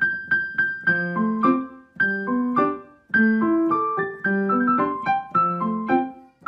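Background piano music: a light tune of short struck notes over simple chords.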